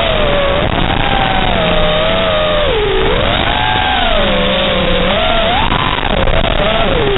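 FPV racing quadcopter's motors (T-Motor 2207.5 1750KV brushless motors on 6S) whining over a steady hiss, the pitch sweeping up and down several times as the throttle changes through the turns.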